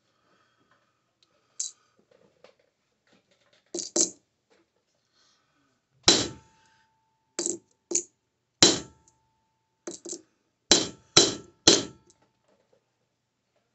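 Hammer striking sterling silver on a steel anvil: about a dozen irregular blows, several in quick pairs, a few leaving a short metallic ring.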